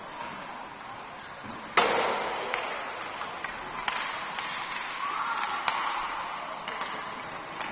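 Ice hockey play: sharp clacks of sticks and puck against the ice and boards, five or so in all, the loudest crack about two seconds in, echoing in the rink.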